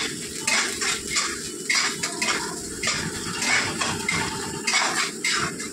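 A spatula stirs and scrapes frying masala around a non-stick wok in short repeated strokes, about two a second.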